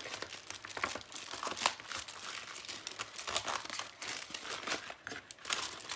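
Paper and plastic rustling and crinkling as a stack of sticker sheets and papers is slid into a clear vinyl zippered pouch: an uneven run of short crackles.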